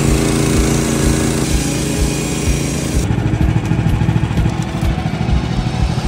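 Gasoline engine of a portable bandsaw mill running steadily, its tone shifting about three seconds in.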